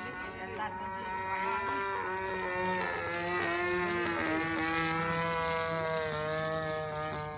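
DLE 20cc single-cylinder two-stroke gasoline engine of a radio-controlled model plane in flight overhead, running steadily with its pitch wavering up and down as the plane passes and the throttle changes.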